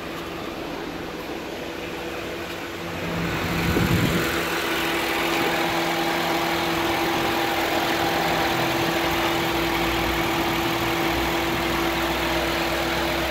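Honda Fit engine idling with the A/C switched on and being regassed, a steady hum. About three seconds in it grows louder with added hiss, and there is a brief low thump about a second later.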